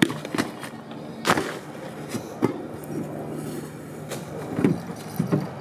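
Knocks and clatter of things being shifted about in a minibus's rear luggage compartment, over a steady low hum.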